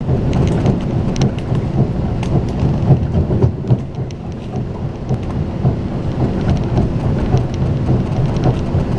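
Running noise of a fast passenger train heard inside the carriage: a steady low rumble of wheels on the rails, with scattered light clicks.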